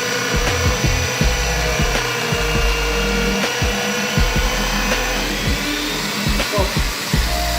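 An electric power tool's motor running steadily with a constant whine, over background music with a changing bass line.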